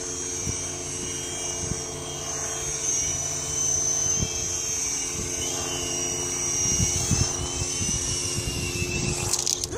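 A real helicopter flying overhead: a steady drone of its engine and rotor, with a high whine that wavers slightly.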